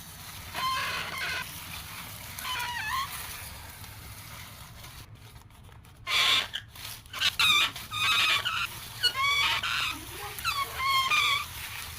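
Repeated animal calls: short, wavering, pitched cries, a few at first, then a quieter spell, then a louder, denser run from about halfway through.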